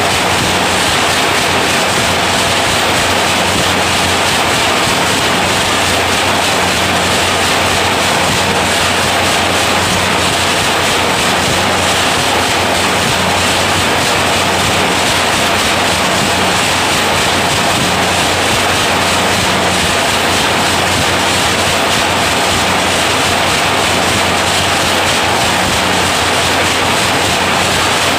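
Automatic wire nail making machine running: a loud, steady mechanical din with a constant low hum underneath.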